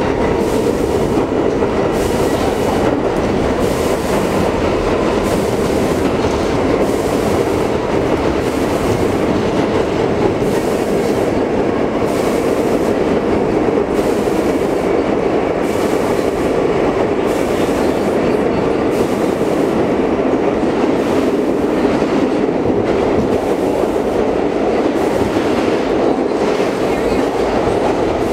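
R42 subway car running at steady speed through a tunnel, heard from inside the car: a loud, even rumble of steel wheels on rail, with a regular clickety-clack of wheels over rail joints about once a second.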